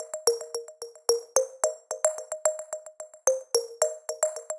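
Background music: a quick, even run of short pitched notes, about four to five a second, each dying away quickly.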